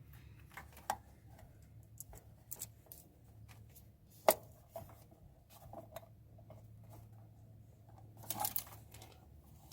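Scattered small clicks and rustles of parts and tools being handled, with one sharp click about four seconds in and a short rustle near the end, over a low steady hum.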